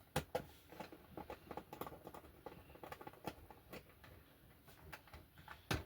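Light, irregular clicks and taps from handling a disc drive's metal cover and small screws, with one sharper click near the end.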